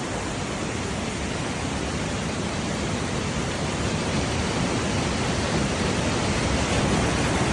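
A waterfall's falling water rushing steadily, growing gradually louder.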